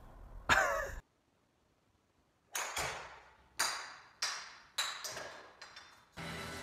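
A child's short cry about half a second in, then a brief silence. Then a golf ball struck off a mat and ricocheting around a concrete garage: a series of about six sharp bangs over three and a half seconds, each ringing out before the next, the later ones fainter.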